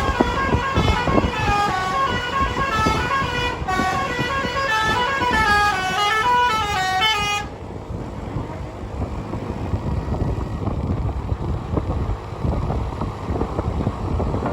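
A bus's telolet musical air horn plays a quick tune of stepped notes, running up and down, for about seven seconds and then stops. The bus's engine and road rumble carry on underneath.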